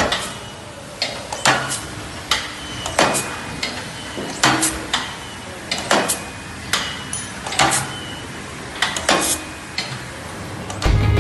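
Irregular metallic knocks and clanks, some with a short ringing tail, as the steel parts of a trim die for aluminium castings are handled and worked by hand.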